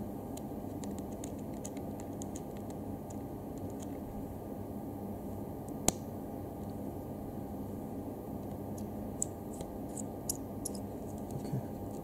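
Small screwdriver turning out the tiny screws of a plastic action camera body: scattered light clicks and ticks, with one sharp click about six seconds in and a few more near the end, over a steady low hum.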